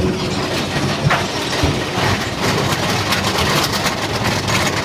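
Mine-train roller coaster running along its track, with a steady noisy rush, sharp knocks about one and one and a half seconds in, and quick rattling clatter later on.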